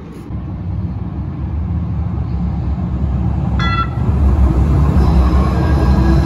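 Calgary Transit C-Train light-rail train approaching and passing close by, a low rumble of wheels and motors that grows steadily louder, with a brief high tone about three and a half seconds in.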